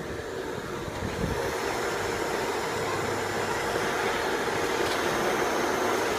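ESPA centrifugal water pump running: a steady hum with one constant tone, a little louder from about a second in.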